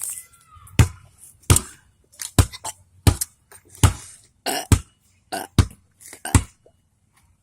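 A person making vocal percussion with the mouth, beatboxing: a steady run of short, sharp hits with low thumps and hissy snaps, about one every three-quarters of a second, some doubled.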